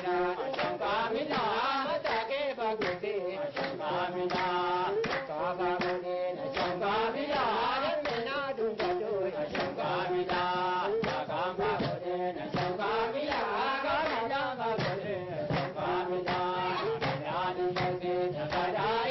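Group chant-like singing with a wavering, ornamented lead voice, kept in time by rhythmic hand clapping, over steady held notes.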